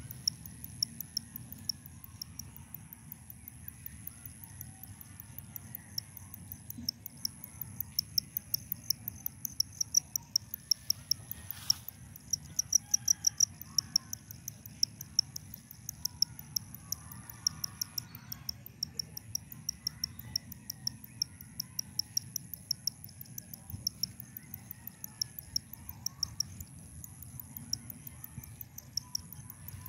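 Insects calling: a steady high-pitched buzz with a quick, regular train of sharp chirps that grows louder in the middle, over a low rumble.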